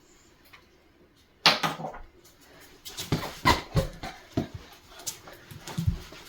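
Marker squeaking on a whiteboard in short, irregular strokes while a diagram is drawn.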